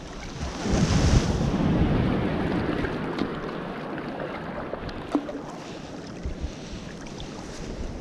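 Sea water sloshing and splashing around a hand hauling a gill net's line, with wind on the microphone; the water noise swells louder for a couple of seconds near the start.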